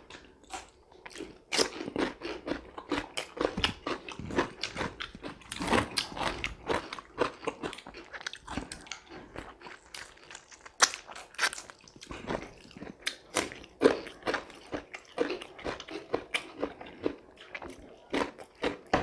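Two people biting into and chewing fresh cucumber slices: a stream of crisp, wet crunches at irregular intervals.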